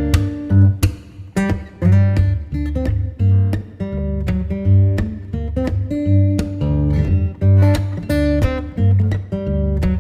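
Background music led by plucked guitar, with a strong bass line.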